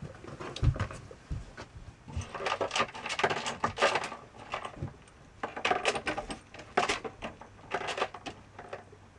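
Light clinking and rattling of small hard items in a clothes closet, in dense bouts starting about two seconds in and again around six seconds, with a few dull thumps in the first second and a half.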